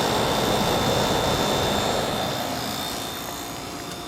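Samsung 5,000 BTU window air conditioner running, its condenser fan blowing a steady rush of hot exhaust air, fading over the last two seconds.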